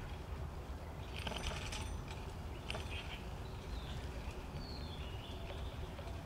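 Bicycle riding ambience: a steady low rumble, with brief clusters of high chirps and jingling about a second in and again near three seconds, and one short high chirp about halfway through.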